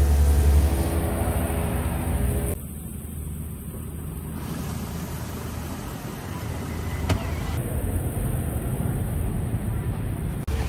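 A motor vehicle's engine running close by, which cuts off suddenly about two and a half seconds in, leaving a steady low rumble of road traffic.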